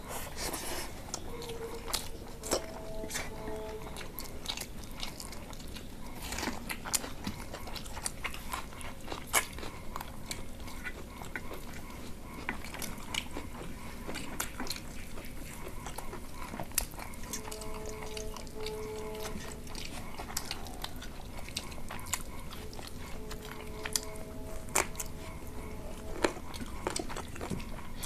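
Close-miked eating: chewing and mouth smacking on rice and chicken curry, with many small sharp clicks and taps as fingers mix and scoop food on metal plates.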